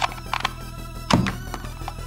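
Background music with a steady beat, over four sharp plastic clicks from a toy pistol being handled, the loudest a little past a second in with a dull knock.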